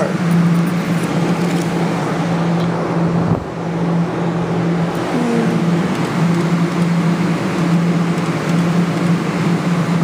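Steady low machine hum over an even background noise.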